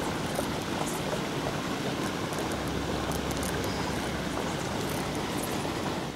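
Steady outdoor rumble and hiss, with a few faint high ticks scattered through it.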